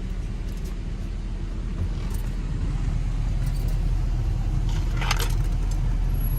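Low, steady rumble of a Ford F-350 pickup's engine heard from inside the cab as it idles and creeps forward in a drive-thru lane, growing slightly louder about two seconds in. A brief metallic jingle, like keys or coins, about five seconds in.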